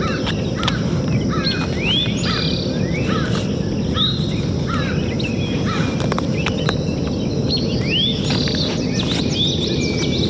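Birds calling outdoors, many short rising chirps repeating every second or so, over a steady low background rumble. A few sharp clicks come from the plastic DJI Mavic 2 Pro drone as it is handled.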